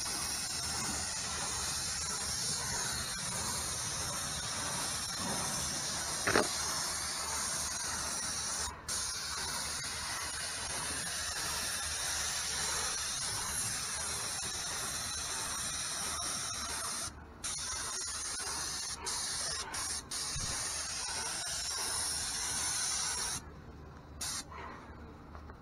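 Graco airless paint sprayer spraying stain from its tip onto wooden fence boards: a steady hiss that cuts out briefly a few times and stops near the end. A short, sharp squeal about six seconds in.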